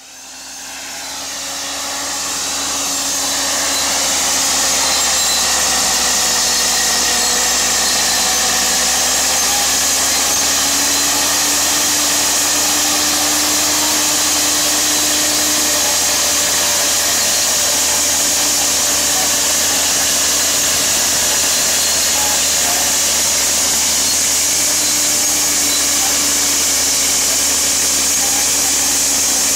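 Fiat-Allis AD20B crawler tractor, fitted with a more powerful replacement Iveco diesel, running under heavy load as it pulls a ripper about a metre deep through tough, rocky soil. It is a steady engine and machine noise whose note wavers slightly with the load, fading in over the first few seconds.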